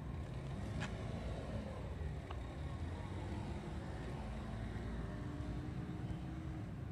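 Street traffic: a steady low engine rumble as a car drives past, with a couple of faint clicks.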